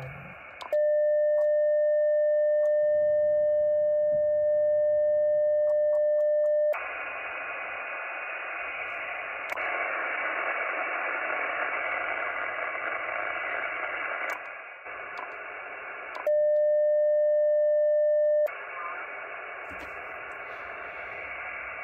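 Icom IC-706MkIIG transceiver's speaker giving a steady beep tone for about six seconds while it sends a tune carrier to the ATAS-120A screwdriver antenna, then the hiss of receiver band noise. A second, shorter beep of about two seconds comes about two-thirds of the way through, followed by hiss again.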